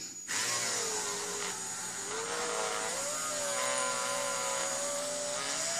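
Handheld rotary tool starting up a moment in and running, spinning a headless nail in its chuck against a plastic crossbow-bolt shaft. Its motor whine wavers in pitch as the shaft is pressed on. The friction heats the nail to melt the plastic onto it.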